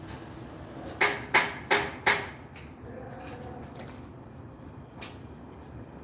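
Four sharp knocks on something hard, about a third of a second apart, each ringing briefly, followed by a few faint clicks.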